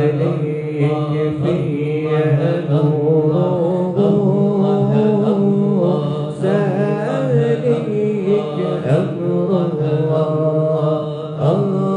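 Group of voices chanting dhikr together: a steady low chorus under a higher, wavering melodic line.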